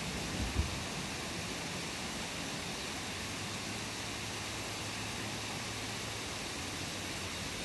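Steady rushing outdoor noise with no distinct events, a faint low hum beneath it, and a brief low bump about half a second in.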